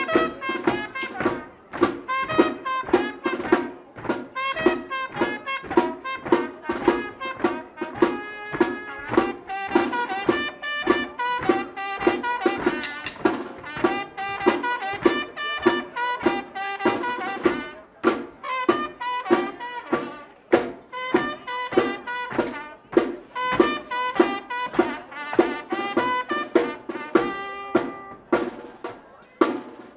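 Tamborazo band playing: trumpets and trombones over a steady beat on bass drum and snare.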